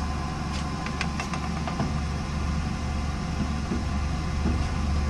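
Steady low machine hum with a thin steady whine above it, and a few light clicks and rustles of a card of small plastic parts being handled about a second in.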